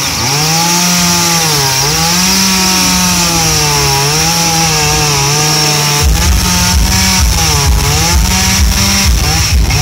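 Gasoline chainsaw carving into an upright log, its engine pitch dipping and rising as the chain bites and the cut is worked. About six seconds in the running turns choppier and pulsing.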